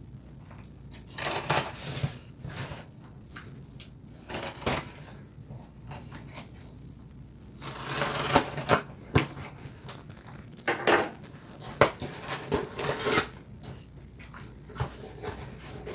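Cardboard shipping box being opened: a blade slitting its packing tape, with cardboard scraping and rustling in irregular strokes, the longest and loudest a little past the middle.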